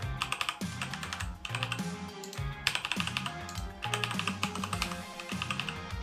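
Typing on an Endorfy GK650K Omnis mechanical keyboard with Kailh Red linear switches: quick runs of key presses in several clusters, over background music.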